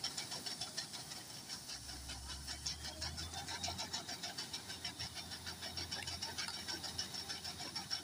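New Holland combine harvester running while unloading grain through its auger: a steady machine sound with a rapid, even clatter repeating several times a second.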